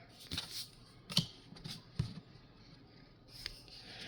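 Pokémon trading cards being handled, with faint rustles and about half a dozen soft ticks as cards slide and shift in the hand.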